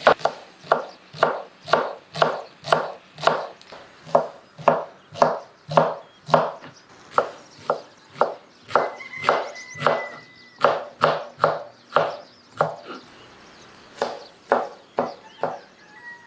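A knife chopping on a cutting board in steady strokes, about two a second, with a few short pauses.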